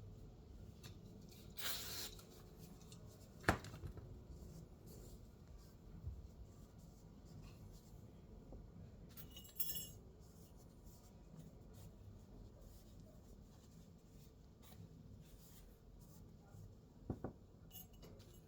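Faint room tone with a few scattered clicks and clinks from small hard objects being handled and set down, the sharpest about three and a half seconds in and another near the end.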